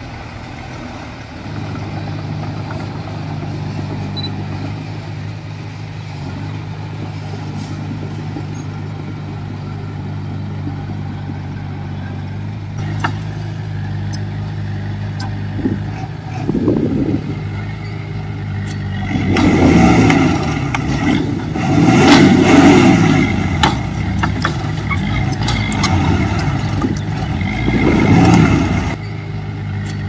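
Komatsu bulldozer's diesel engine running steadily, with a few sharp metal clanks midway. In the last third it is louder and surges several times, rising and falling in pitch as it works under load pushing soil.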